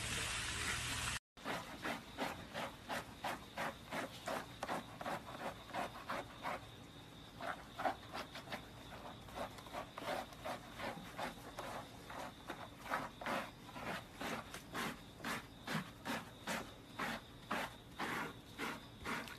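Hands scrubbing a wet, soapy golden retriever's fur in a tub, with short rhythmic rubbing strokes about two to three a second. The first second is a steady hiss of water spray before a sudden cut.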